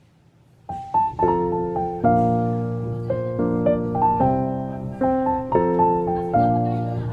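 Background piano music starting a little under a second in: a melody over chords that change about once a second.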